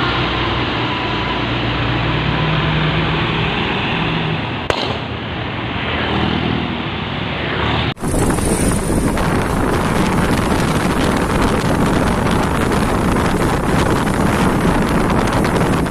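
Heavy truck diesel engine running hard under load. About eight seconds in it cuts abruptly to a louder, harsher engine sound with a dense, rapid crackle.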